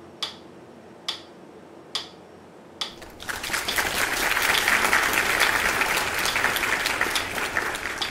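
Evenly spaced sharp clicks, a little under one a second, then about three seconds in a burst of applause that lasts about five seconds and fades near the end.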